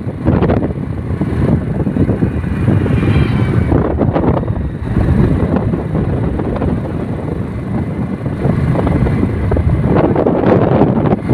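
Wind buffeting the microphone with the steady rumble of a moving road vehicle.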